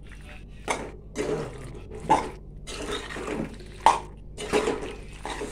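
Spoon stirring sauce-coated pasta in a pan: irregular wet scrapes and clatters, with one sharp clink about four seconds in.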